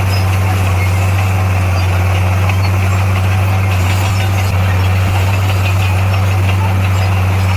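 Heavy diesel engine of earthmoving equipment running steadily, a constant low drone with no change in pitch.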